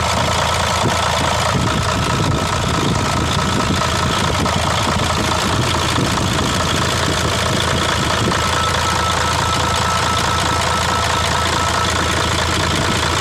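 Mercedes-Benz Actros 1841's V6 diesel engine idling steadily, with a thin steady whine above the low, even firing. It is being run while its injectors are checked one by one for a hard-starting fault, with weak injection pressure suspected.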